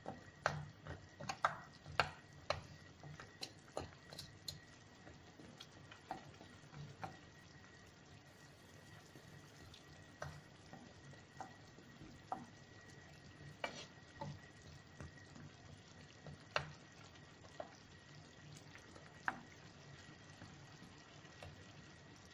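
A wooden spatula stirring a simmering chicken and tomato stew in a deep frying pan. It knocks and scrapes against the pan in irregular clicks, thick in the first few seconds and sparser after, over the faint sizzle of the sauce cooking.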